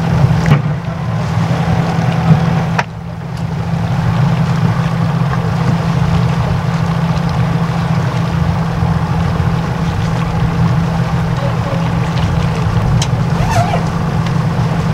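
A sailing yacht's inboard diesel engine runs steadily at low speed while the boat manoeuvres toward a mooring, a constant low drone. The sound dips briefly about three seconds in, then carries on unchanged.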